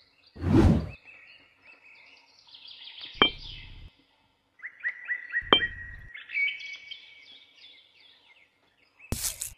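Birds chirping steadily in short, repeated high notes. A short burst of rushing noise comes about half a second in, two sharp clicks with a brief dull thud follow at about three and five and a half seconds, and a second loud burst of noise comes near the end.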